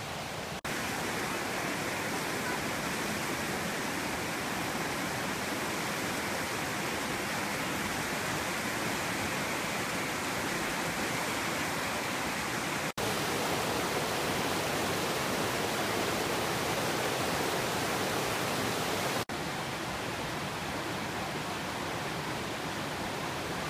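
Fast floodwater rushing over a flooded road and past its guardrails and bridge wall: a steady, even rushing noise, broken by brief dropouts about half a second in, about 13 seconds in and about 19 seconds in.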